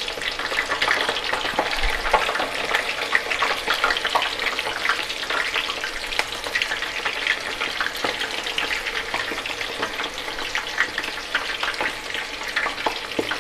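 Medu vadas deep-frying in hot oil: a dense, steady sizzle full of small crackling pops. The vigorous bubbling comes from the water the vadas soaked up boiling off into the oil, the early stage of frying before the bubbles settle and the vadas turn crisp.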